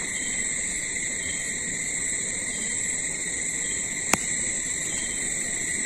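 Crickets trilling steadily at night, a constant high-pitched chorus. A single sharp click about four seconds in.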